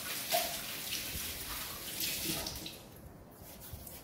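Palms rubbing and rolling a ball of wheat-flour dough, a soft hissy brushing that fades out near the end.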